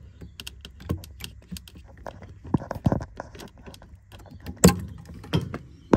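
Irregular clicks, taps and small metallic clinks of hands and a tool working among the wires and fittings behind a caravan fridge. The sharpest knock comes about two-thirds of the way through.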